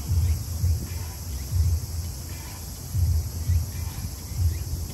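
Outdoor ambience: irregular low rumbles of wind on the microphone over a steady high chorus of crickets.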